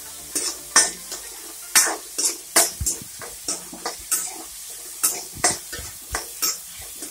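Onions and tomatoes sautéing in oil in a metal kadai, sizzling steadily while a ladle stirs them. Irregular scrapes and knocks of the ladle against the pan come every half second or so.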